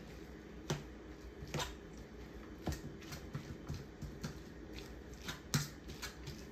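Fork tines clinking and scraping against a stainless steel bowl while shredding boiled chicken breast, several sharp clinks at uneven intervals with soft squishing of the meat between.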